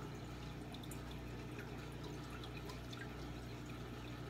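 Aquarium filter running: water trickling and dripping back into the tank in many small, irregular drips over a steady low hum from the pump.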